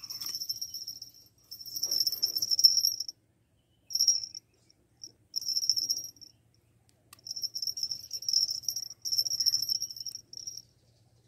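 Insects trilling in repeated bursts of a second or so, a high-pitched steady buzz that stops and starts with short gaps between.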